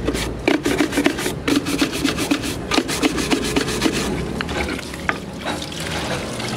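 Hand scrubbing the inside of an empty plastic lead-acid battery case with a cloth: irregular rubbing and scraping against the cell partitions, with frequent small knocks of the plastic.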